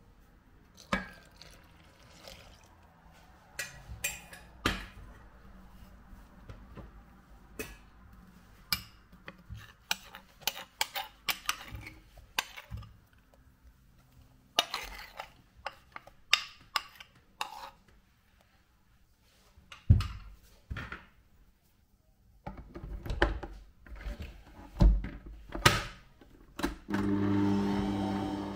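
Kitchen utensils and dishes knocking and clinking on bowls and the worktop in scattered sharp knocks. Near the end, a small electric motor starts up with a steady hum.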